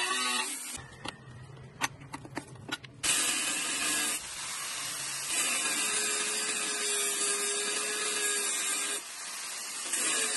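Angle grinder with a thin cut-off disc cutting steel: a hissing grind over the motor's whine. About a second in it gives way to a lull with several sharp clicks, and cutting resumes at about three seconds, with a brief dip near the end.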